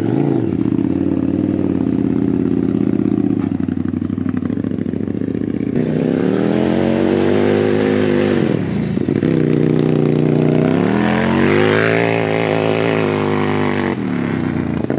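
Off-road kart's 1000cc KTM engine revving hard as the kart is driven on dirt. Its pitch climbs and falls in two long surges over the second half, with a brief dip between them, over the hiss of the tyres throwing loose dirt.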